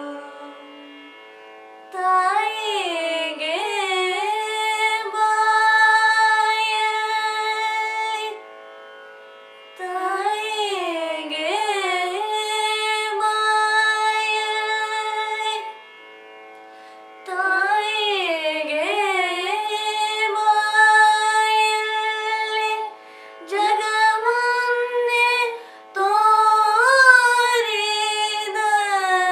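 Two girls singing Carnatic music in raga Yamuna Kalyani over a steady drone. They sing long, ornamented phrases with sliding pitch and pause briefly three times, while the drone carries on underneath.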